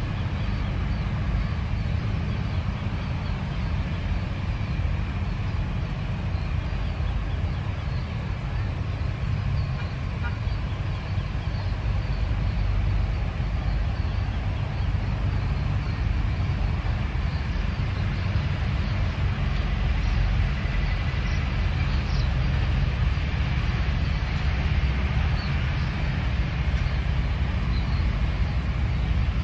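Steady low rumble and hiss of an airliner's jet engines at taxi idle as it turns on the runway, mixed with passing road traffic.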